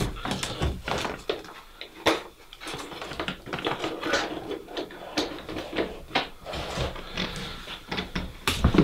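Irregular clicks, knocks and rustling of cables and plastic plug connectors being handled, laid out and connected by hand.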